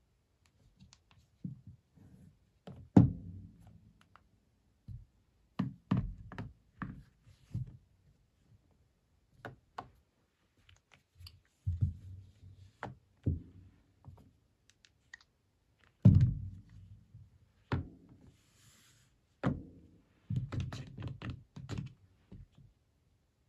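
Irregular thuds, knocks and clicks of handling on a hard surface, a dozen or so scattered at uneven intervals, the loudest about 3 seconds in and again about 16 seconds in.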